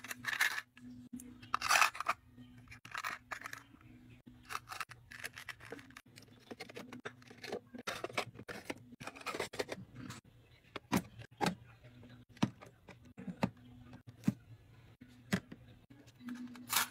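Small plastic items (hair claw clips, hair ties and similar) clicking and rattling against clear acrylic organizer boxes as they are handled and set into the compartments: an irregular string of sharp clicks, with louder rattling bursts near the start.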